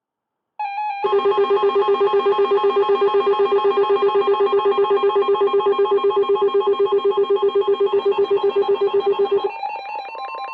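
Emergency Alert System attention tone sounding before the next warning: a loud electronic alarm that starts about half a second in and pulses rapidly, about eight times a second, then changes near the end to a quieter pattern with a steady higher note.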